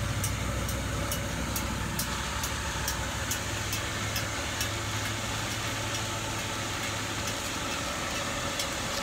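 Blower fan of a geothermal (earth-tube) air system running steadily, pushing ground-cooled air: an even whir with a low hum and light ticks about two or three times a second. The low hum fades about seven seconds in.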